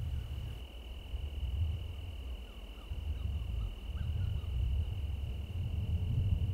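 A cricket trilling in one unbroken, steady high tone, over a louder, uneven low rumble of wind on the microphone.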